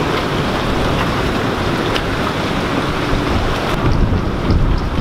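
Hurricane-force wind blowing across the microphone: a loud, continuous rush of wind noise with heavy low buffeting. The high hiss thins a little near the end.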